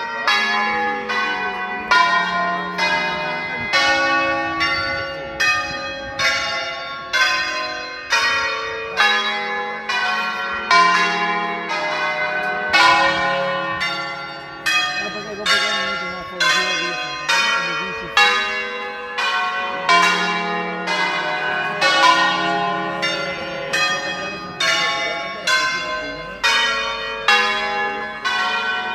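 A concerto of ten church bells tuned in D-flat, rung in the Veronese system. Single bell strokes follow one another about twice a second in changing melodic sequences, each bell ringing on under the next.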